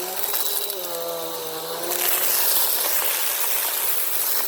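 Bissell Power Force Compact upright vacuum running over sand and dirt, its motor hum slowly rising and falling in pitch. About two seconds in, a louder rushing hiss of air takes over.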